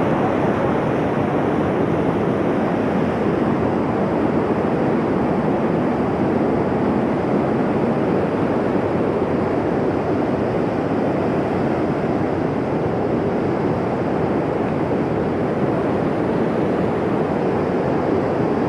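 Swollen mountain stream rushing over rocks and down a small waterfall, loud and steady throughout; the water is running high after rain.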